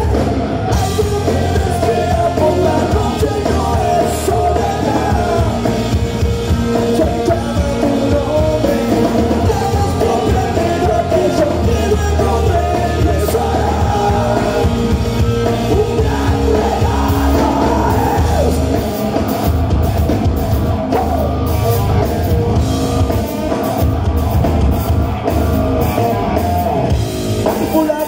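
Rock band playing live on stage: electric guitars, bass and a drum kit with vocals, played through the venue's PA.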